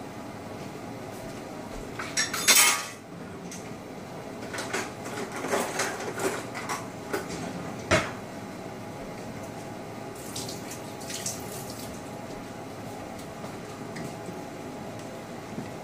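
Metal spoon and ladle clattering against a steel cooking pot and a serving platter. There is a loud scrape-and-clink burst about two seconds in, then a run of clinks and knocks ending in a sharp knock about eight seconds in, then a few lighter clinks, over a steady background hum.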